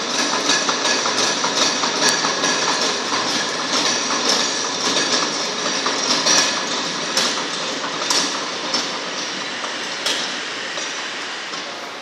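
Belt-driven hammer mill running, a loud, dense rattling clatter of rapid knocks over a steady mechanical rush, easing off a little near the end.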